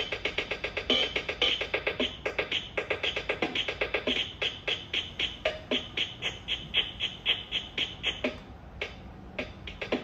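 Built-in drum rhythm patterns of a BIGFUN BF-630A1 61-key toy keyboard playing through its small speakers, switched from one preset to the next, with a brief lull about eight and a half seconds in.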